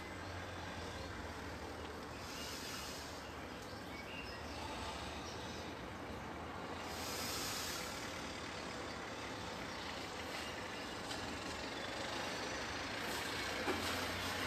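Steady background noise, a low hum under an even hiss that swells slightly a couple of times, with no distinct events.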